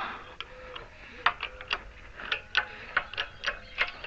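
A run of light metallic clicks and ticks, about three a second, with a faint squeak between them, as a press is worked to push a front wheel bearing part into place.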